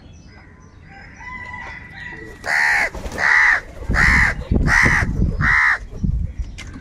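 A crow cawing five times in quick succession, harsh and loud, starting about two and a half seconds in. Fainter chirps of smaller birds come before.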